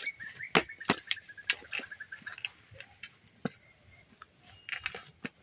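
Bangles clicking against each other and against the plate as hands knead a soft biscuit dough, in irregular sharp taps.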